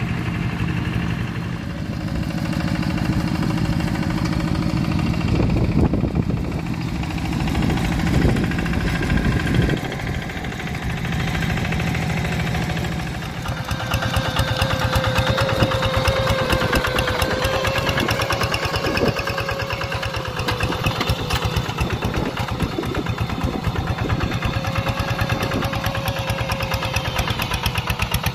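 Two-wheel hand tractor's single-cylinder diesel engine running steadily under load in a flooded rice paddy. It is farther off at first, then close and louder from about 13 seconds in, with a steady whine over the rapid firing.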